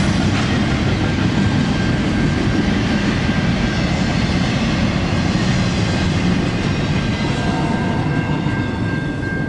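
Norfolk Southern freight train passing fast, at about 40 miles per hour: a loud, steady rumble and rush of wheels on rail with a thin, steady high tone over it. The noise eases a little near the end as the last cars go by.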